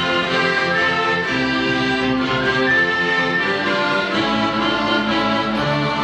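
Ukrainian folk-instrument orchestra, with button accordions, banduras, other plucked strings and violins, playing a piece with held low notes under moving chords.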